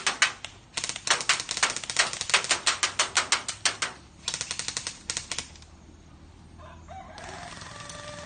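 Airsoft (BB gun) shots fired in quick strings, about seven sharp cracks a second, in two runs that stop about two-thirds of the way through.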